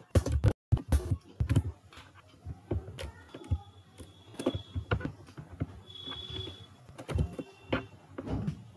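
Computer keyboard typing: quick runs of key clicks, densest in the first second and a half, then scattered single clicks. A faint high tone comes and goes a few times.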